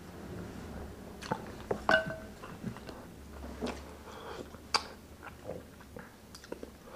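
Close-miked eating sounds: sipping soup from a wooden spoon and chewing, with scattered wet mouth clicks. About two seconds in comes a brief ringing clink as the small sauce cup is set down on the plate.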